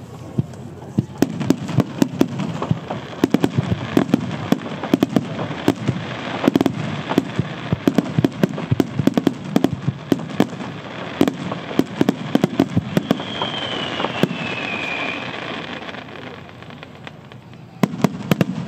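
Starmine fireworks display: rapid volleys of shells bursting, many sharp bangs a second over a steady rumble. A high whistle glides down in pitch about thirteen seconds in; the bangs thin out after about sixteen seconds and a last cluster comes near the end.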